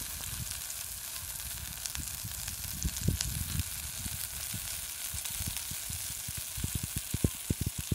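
Pieces of flathead fish frying in hot oil in a pan, with a steady sizzle. A run of low thumps comes faster near the end.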